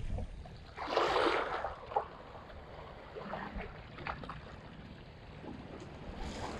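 Shallow sea water washing and lapping against shoreline rocks, with a louder wash about a second in, over a low rumble of wind on the microphone.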